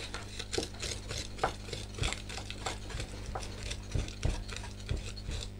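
Chef's knife blade pressed flat and dragged across a wooden cutting board, grinding garlic with salt and spices into a paste: irregular gritty scrapes and taps, several a second.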